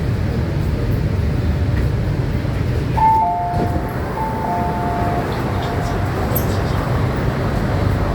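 MTR K-Train running along the track with a steady low rumble. About three seconds in, a two-note tone sounds, a higher note then a lower one, repeating more faintly for a few seconds.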